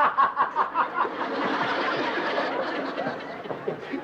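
Audience laughter: quick bursts of laughing at first, merging into a steadier wash of many people laughing.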